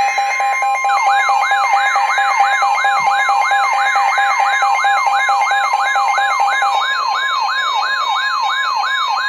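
Emergency alert signal: steady alarm tones with a fast, repeating rising siren sweep over them, about three sweeps a second, coming in about a second in. One of the steady tones drops out near the end.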